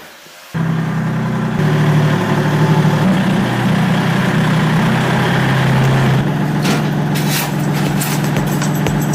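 A heavy engine or motor running steadily, starting abruptly about half a second in, with a run of sharp knocks or clicks over it near the end.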